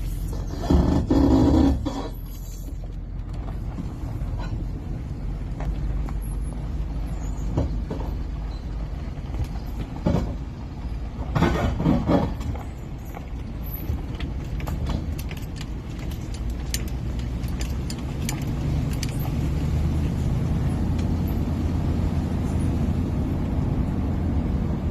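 2007 Nissan Titan pickup's V8 running, a steady low drone of engine and road noise that grows a little louder over the last few seconds. Two brief louder sounds stand out, one about a second in and one about eleven seconds in, with scattered light clicks between.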